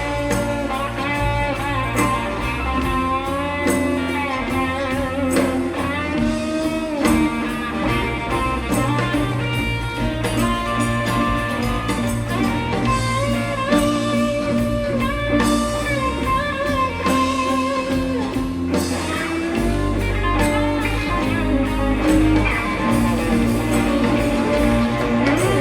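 Live blues-rock band playing an instrumental passage: a lead electric guitar with bent, wavering notes over bass and drums.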